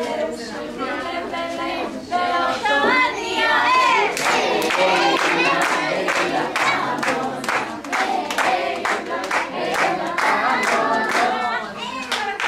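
Young children singing together, with hand claps keeping time at about two a second from about four seconds in.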